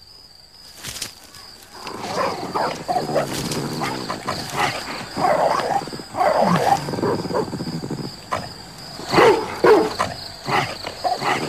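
A puppy and a larger dog growling and snarling at each other in a scuffle over food scraps, starting about two seconds in and loudest around nine seconds in.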